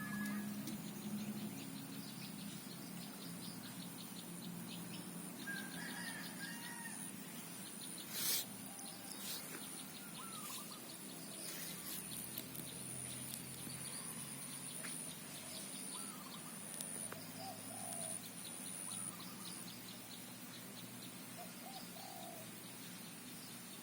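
Birds chirping and calling in the open, with a rapid high trill and a steady high-pitched whine that stops near the end; one sharp click about eight seconds in.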